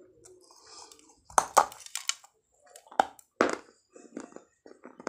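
Bites into a shard of baked clay pot and chewing. There are several sharp, crisp crunches between about one and three and a half seconds in, then softer chewing crunches toward the end.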